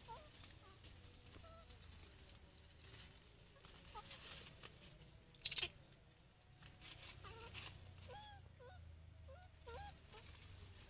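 A series of short animal calls, each bending up and down in pitch, mostly in the second half. A few sharp crackles of dry leaves or stems come with them, the loudest just past the middle.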